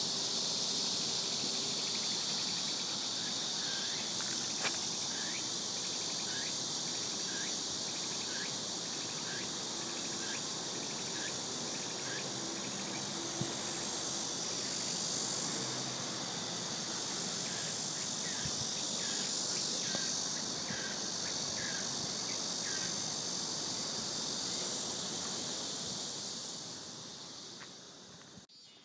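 Steady high chorus of chirping insects, with a short call repeating a little faster than once a second through the middle stretch. It fades out near the end.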